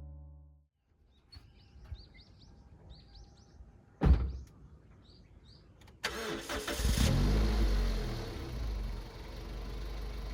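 Birds chirping, then a single loud thump about four seconds in. About six seconds in the Toyota MR-S's 1.8-litre four-cylinder engine starts, runs up briefly, then settles to a steady idle.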